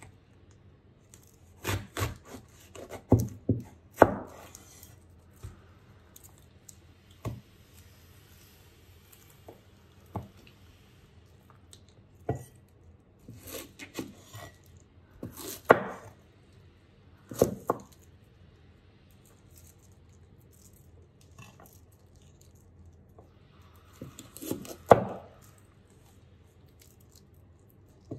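Kitchen knife cutting through crisp red cabbage leaves and knocking on a wooden cutting board. The cuts are irregular, with a quick cluster of chops early on and then single cuts with pauses between.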